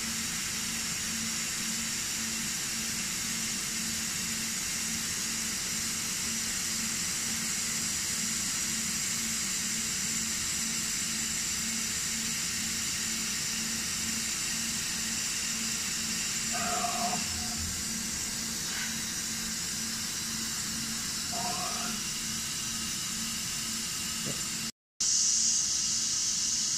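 Disco DAD3350 dicing saw running a test cut on a wafer: a steady hiss from the spinning blade and its cutting-water spray, over a low, evenly pulsing hum. Two short rising chirps come about two-thirds of the way through.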